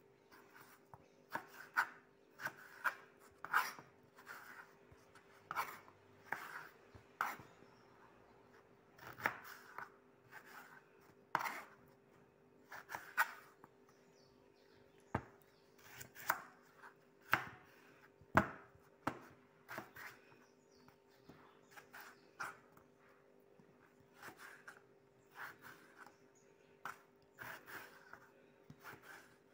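Kitchen knife slicing raw potatoes into chips on a cutting board: irregular knocks of the blade through the potato onto the board, about one or two a second with short pauses, over a faint steady hum.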